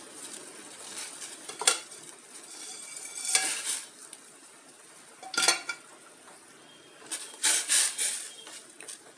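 Water bubbling at a boil in a steel pot holding instant noodle blocks, with a few short clinks and knocks against the pot. Near the end a metal ladle stirs the noodles with a quick run of scraping clinks.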